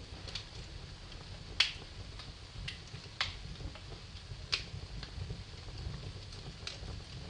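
Wood fire burning in a fireplace: a low steady rumble of flames with sharp crackles and pops every second or so, the loudest two about a second and a half in and near the middle.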